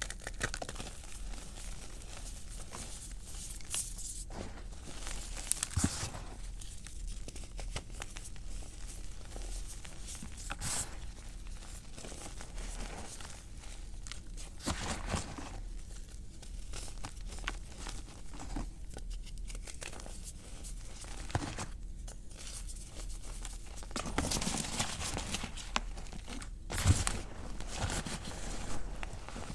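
Hands crushing and rubbing dry cornstarch and gym chalk in a pan: irregular crunching and crumbling of the chalky pieces over a soft, powdery rubbing. The crunches come in uneven bursts, and the loudest is near the end.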